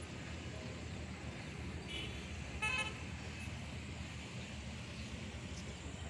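Steady low rumble of wind on the phone microphone. About two and a half seconds in it is broken by a short, high-pitched toot, with a fainter one just before.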